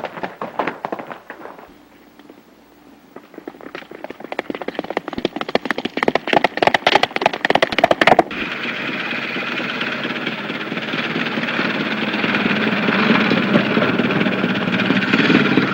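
Horse hooves galloping on a dirt road, the hoofbeats growing louder for several seconds, then cut off about eight seconds in by the steady running and rattle of an old motor truck's engine.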